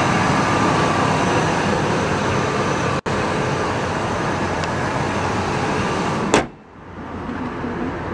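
2000 Ford F-150's 5.4-litre Triton V8 idling steadily, with a momentary break about three seconds in. A sharp bang comes about six seconds in, after which it is much quieter.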